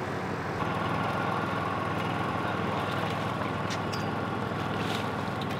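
A steady low engine hum, with a thin steady tone joining about half a second in.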